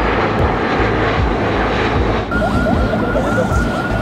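Jet airliner flying low overhead, its engines a steady rushing noise. A little over two seconds in the sound changes to city noise, with a steady high tone and a fast repeating warble.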